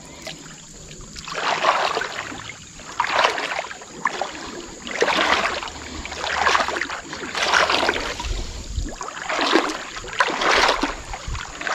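Legs wading through shin-deep muddy floodwater, a slosh of water with each step, about one every second and a half.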